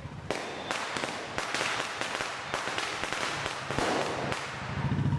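Diwali firecrackers going off one after another, a quick irregular run of sharp bangs, several a second at times, with crackling hiss between them.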